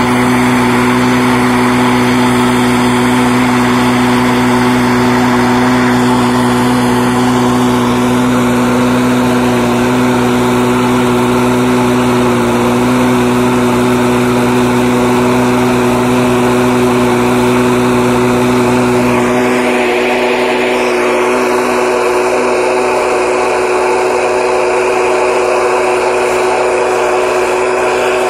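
Small single-cylinder petrol engine of a portable power unit running steadily at a constant speed. A lower hum underneath it drops out about two-thirds of the way through, while the engine keeps running.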